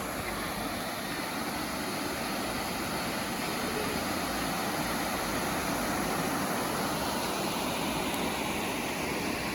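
Steady rush of a waterfall pouring into a creek pool.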